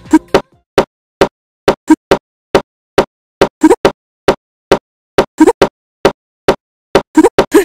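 Music cuts off just after the start, then a run of short kissing smacks with silence between, some single and some in quick pairs and triplets, about two to three a second.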